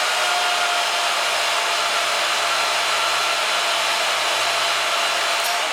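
Welding a steel rod-stock counter hoop, a steady, even hiss that starts suddenly and holds level.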